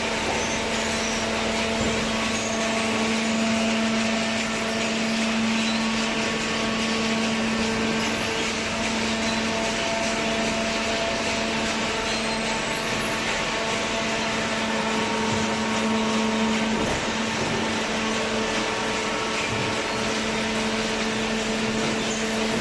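Industrial machinery running steadily: a constant hum over an even hiss, with no let-up.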